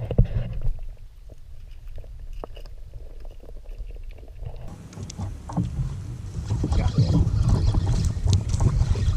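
Water splashing and knocking around a fishing kayak, with a louder splash right at the start. The sound grows louder and fuller about halfway through.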